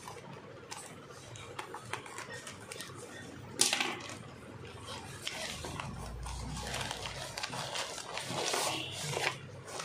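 A plastic courier mailer bag being pulled and torn open by hand, crinkling and rustling, with one sharp loud rip about three and a half seconds in.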